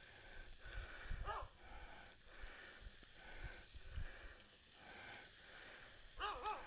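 Chicken and hot dogs sizzling faintly on a grill, a steady hiss as sauce is brushed on. Two brief high whines cut in, about a second in and again near the end.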